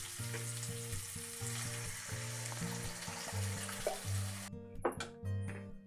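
Fried prawns and spice masala sizzling in hot oil in a kadai as they are sautéed. The sizzle cuts off suddenly about four and a half seconds in, and a few short sharp sounds follow.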